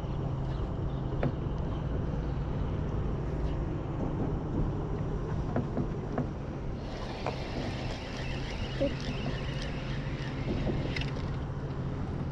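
Steady low hum of a boat's motor with scattered light clicks of a spinning reel being handled. From about seven to eleven seconds in, a higher whirring joins as the reel is wound in.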